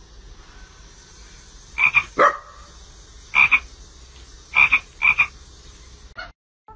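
Small frog croaking in short calls, five in all, some coming in quick pairs.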